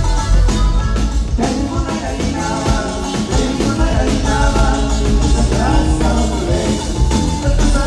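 Norteño band playing live, with a voice singing over a steady beat.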